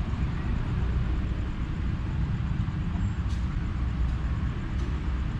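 Steady low rumble of a train drawing toward the camera from a distance, with a few faint clicks in the second half.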